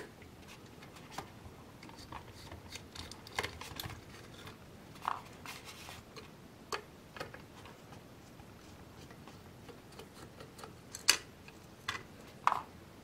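Scattered small clicks and taps of hands and a small tool working on the plastic housing and circuit board of a robot vacuum's laser distance sensor as it is taken apart. A sharper click comes about 11 seconds in, and two brief squeaks come around 5 seconds and near the end.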